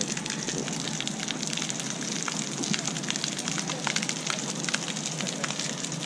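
Fountain jets falling and splashing into a shallow water channel: a steady, dense spatter of droplets full of small sharp ticks.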